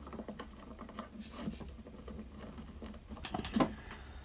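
Light clicks, taps and scratches of small hand work on an OO gauge model railway layout: a small pointed tool working scenery pieces into the ballasted baseboard, with a louder cluster of clicks about three and a half seconds in, over a low steady hum.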